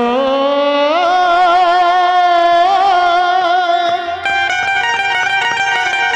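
Live Indian folk-stage band music: a melody line held and bent with a wavering pitch for about four seconds, then quick plucked notes over a low steady drone.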